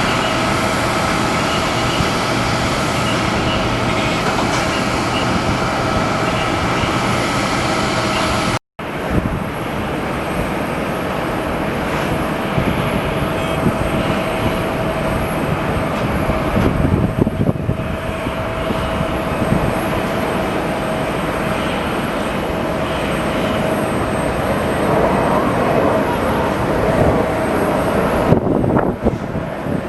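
Jet airliner engines running, a steady roar with a held whining tone over it; the sound drops out for an instant about nine seconds in, then carries on.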